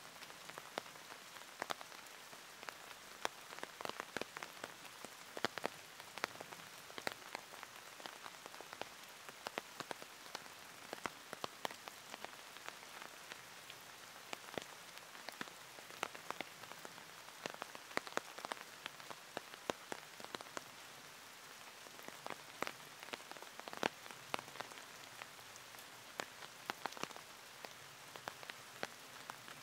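Steady rain falling, with many single drops landing as sharp, irregular ticks.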